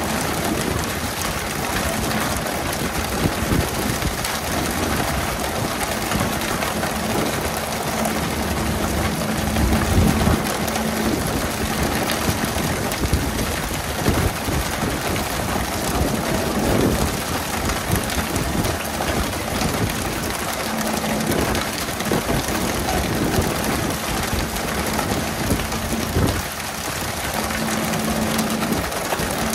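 Dense, rain-like hiss of a pole-and-line boat's water sprayers spattering on the sea, full of quick thuds and slaps as skipjack tuna are jerked from the water and land on the deck. Under it runs a low engine hum that fades out through the middle and comes back near the end.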